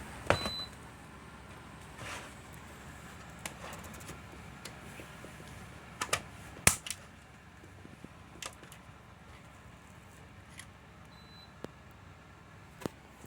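Scattered clicks, taps and knocks of a cardboard box and a plastic internet gateway being handled and packed, the loudest just after the start and about six and a half seconds in. A short high beep sounds twice, near the start and near the end.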